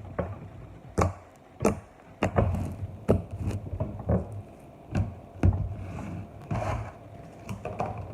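Irregular knocks, taps and light clatter, about a dozen in all, with short scrapes between them: objects such as a bowl, a utensil and a glue bottle being handled on a table.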